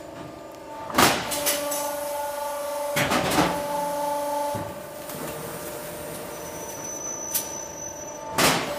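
Automatic sheet-metal duct line running with a steady machine hum, broken by loud metal clanks from its press stations: one about a second in, a double clank around three seconds, and another near the end.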